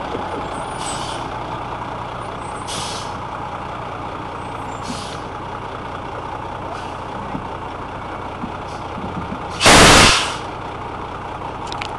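Engine of a boat-launching trailer running steadily, with short hisses about every two seconds and one loud burst of hiss about ten seconds in.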